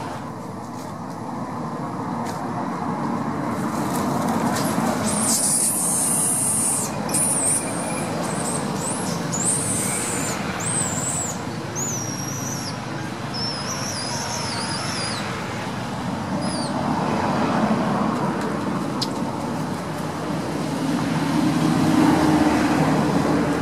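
Baby macaque giving a run of high, wavering squeals about five to fifteen seconds in, over a steady outdoor background noise.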